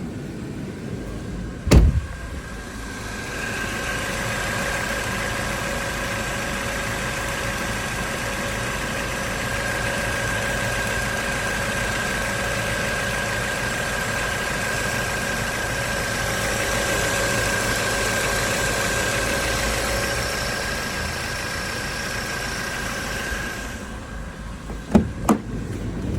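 Ford Mondeo Mk4's 2.3-litre four-cylinder petrol engine idling with the air conditioning switched off. The owner is listening for a knock he locates between the first and second cylinders. A sharp click comes about two seconds in, then a steady whine with several fixed tones joins the idle until a few seconds before the end, followed by two more clicks.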